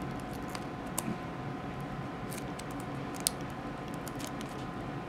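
A few faint clicks and light rustles from hands working a small piece of clear packing tape, over a steady background hum.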